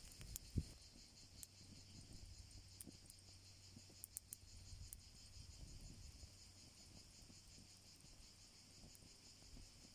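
Faint, steady, high-pitched chirring of an insect chorus with a slight pulse, broken by a few sharp ticks and a single knock about half a second in.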